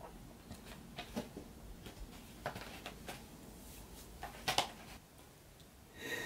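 Soft scattered clicks and rustles from a cardboard medicine box being handled, then a sharp sniff about four and a half seconds in and a short sob near the end as a person starts to cry.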